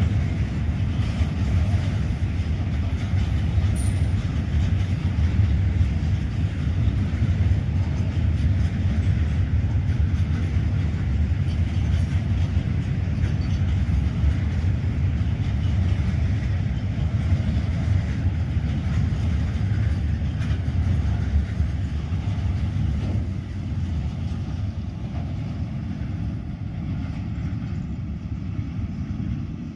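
Indian Railways train running on the track, a steady low rumble of wheels on rail that eases slightly in the last few seconds.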